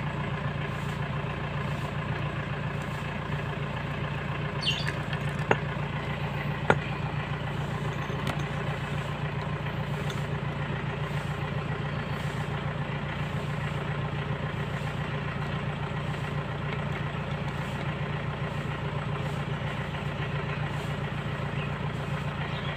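An engine idling steadily, with two sharp clicks about five and a half and six and a half seconds in.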